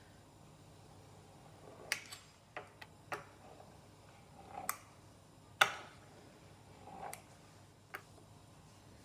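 Pizza-cutter wheel rolling through rolled-out dough and knocking against the countertop: scattered sharp clicks and taps, a few with a short soft rolling sound just before them, the loudest about five and a half seconds in.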